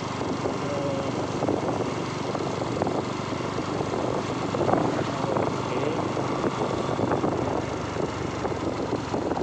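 Motorcycle engine running steadily while the bike is ridden at cruising speed.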